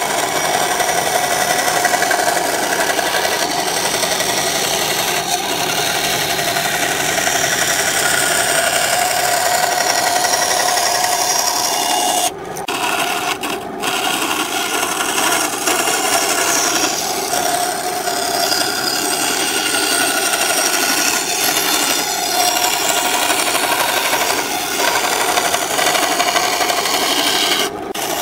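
Benchtop bandsaw running with a steady hum, its blade cutting through wood: first a curve through pine, then a second board. The sound breaks off briefly twice around twelve to fourteen seconds in, and once just before the end.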